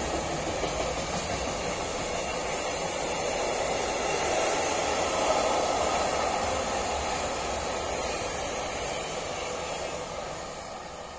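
Freight train of tank wagons rolling past, a steady rumble of wheels on the rails that starts to fade near the end as the wagons pull away.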